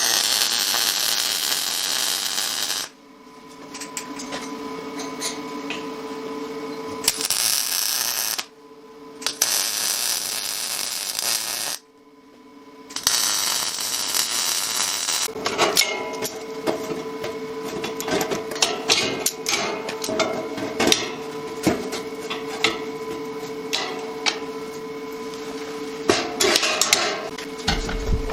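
MIG welding on steel tubing: four short bursts of arc crackle, each lasting one to three seconds and cutting off sharply, over a steady hum. Through the second half comes a run of clanks, taps and knocks of steel being handled and hammered.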